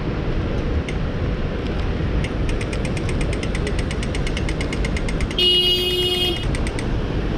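Steady hiss of wet city street traffic. Through the middle runs a fast, even clicking, about eight clicks a second for some four seconds. A car horn sounds once for about a second, the loudest thing here.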